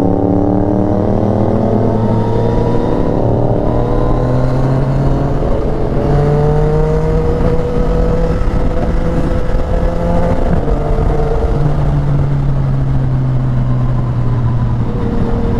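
Motorcycle engine running at road speed, its pitch climbing slowly for several seconds and then holding steady, under a constant rush of noise.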